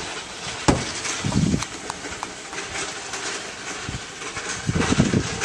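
Wheeled trolleys rattling and clattering as they are pushed along, with a sharp knock about a second in and heavier rumbling clatter twice.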